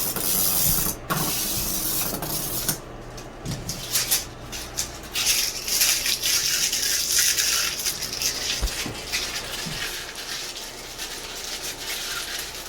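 Plastic packaging being handled: a hissing rustle broken by many small crackles, loudest in the middle and fading toward the end.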